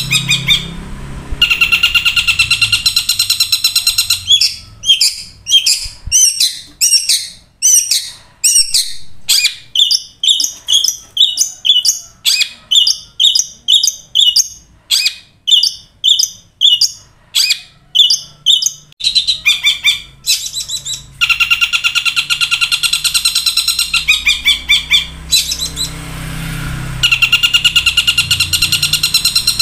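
Long-tailed shrike (cendet) singing loudly. Fast, harsh rattling trills alternate with a long run of separate sharp call notes, about two a second, in the mimicked 'kuntilanak' and stork-billed kingfisher (tengkek buto) style prized by cendet keepers.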